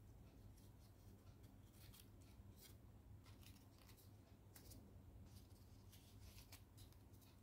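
Faint, irregular rustling and crinkling of a folded paper origami jet handled between the fingers, over a low steady hum.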